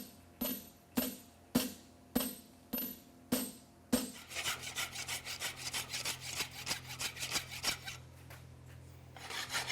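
Hammer striking a steel horseshoe on the anvil about eight times, roughly two blows a second, each blow ringing; this is the farrier opening up the shoe's branches. Then rapid, even scraping strokes of hand-finishing on the steel shoe, which pause briefly and start again near the end.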